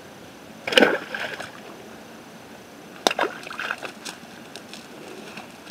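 Fish being picked out of a wet cast net by hand and tossed down: a loud slap just under a second in, a sharp knock about three seconds in, and the net rustling between.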